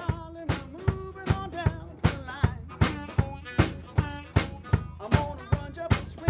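A live band playing: harmonica over acoustic guitar and a drum kit keeping a steady beat of about two and a half hits a second.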